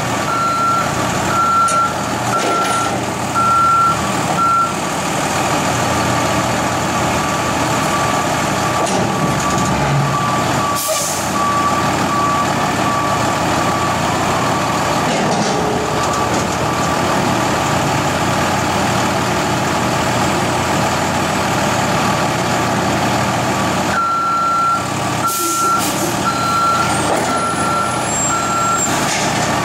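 Heavy truck engines running steadily while backup alarms beep: one alarm at the start and again near the end, and a second, fainter and lower one in the middle. A brief hiss comes about eleven seconds in.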